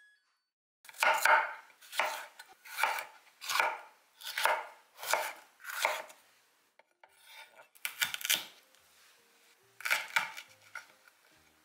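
Chef's knife cutting bell peppers on a wooden cutting board: a run of about seven even strokes, roughly one every 0.7 s, then a few separate knocks. Near the end comes a knock as a small metal vegetable cutter is pressed through pepper onto the board.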